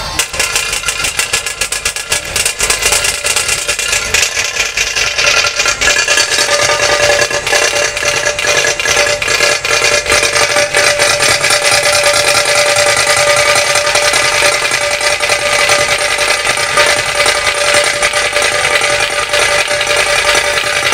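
A dhol-tasha ensemble playing: fast, unbroken tasha drum rolls over the beat of many dhol barrel drums.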